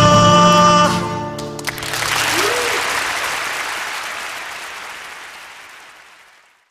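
The song's final chord holds for about the first second and stops, then an audience applauds, the applause fading away to silence near the end.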